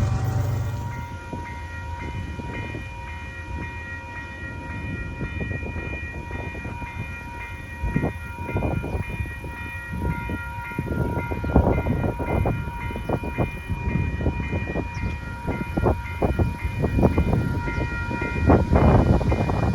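A freight train rolling past, its wheels clacking and knocking over the rail joints, denser and louder from about eight seconds in. A horn tails off in the first second, and steady high ringing tones run underneath.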